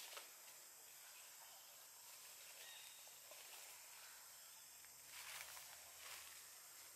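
Near silence: faint outdoor ambience with a steady high hiss and a few faint ticks, and a faint low hum coming in about five seconds in.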